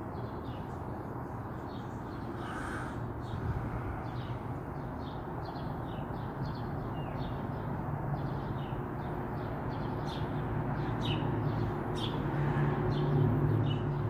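Outdoor ambience: small birds chirping repeatedly, with a louder call about two and a half seconds in, over a low engine hum that grows louder in the second half.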